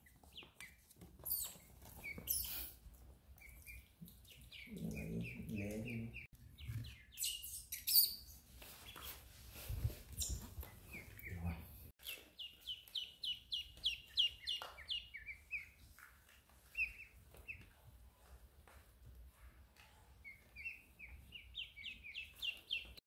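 Ducklings peeping: several runs of quick, high peeps, one after another, with short lulls between them. A sharp knock about eight seconds in.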